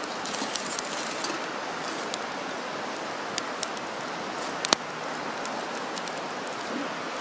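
Wood campfire burning, with scattered crackles and pops over a steady hiss; one sharper pop comes a little under five seconds in.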